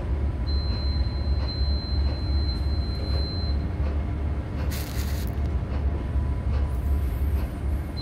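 Low, steady engine rumble of ships' machinery, pulsing evenly. A thin high whine sounds for about three seconds near the start, and a brief hiss comes just past the middle.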